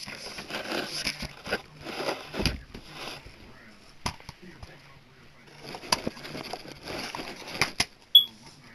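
Hands rustling and sliding cardboard sleeves and a plastic Blu-ray case, with several light clicks. A short, sharp high-pitched click near the end is the loudest sound.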